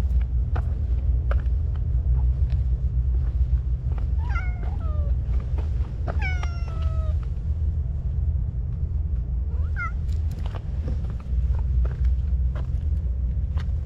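A stray cat meowing three times: a drawn-out meow about four seconds in, a louder one about six seconds in, and a short one near ten seconds. Under it runs a steady low rumble.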